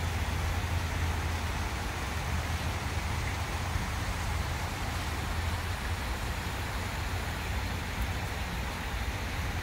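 Steady road noise inside a moving car: a constant low rumble with tyre hiss.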